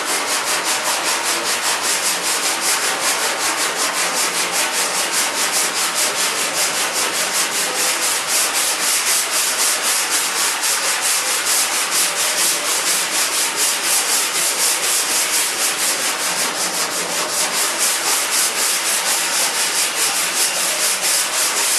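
Sandpaper sanding a surface in quick, even back-and-forth strokes, a loud rasping scrub pulsing about five times a second. It starts and stops abruptly.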